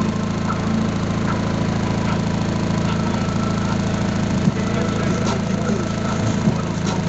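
Car engine idling steadily, a low even drone with a few faint clicks.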